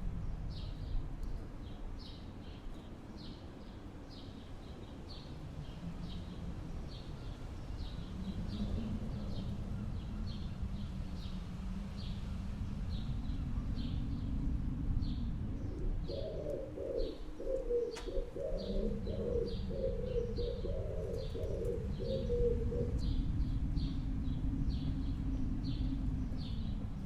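Natural bird ambience: a bird repeats short high chirps about twice a second throughout, and a dove coos in a low, pulsed phrase for several seconds from a little past the middle, over a steady low rumble.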